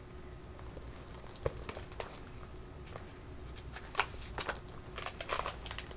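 Paper rustling and soft crinkles as the pages of a picture book are handled and turned, busier in the last couple of seconds.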